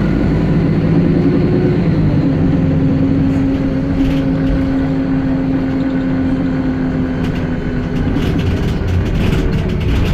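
Wright StreetLite single-deck bus heard from inside the saloon: steady engine and drivetrain drone with a held whine that fades about eight seconds in, followed by light interior rattles and clicks near the end.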